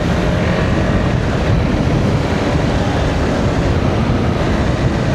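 Steady wind rush on the microphone of a motorcycle under way, with engine and road noise beneath it.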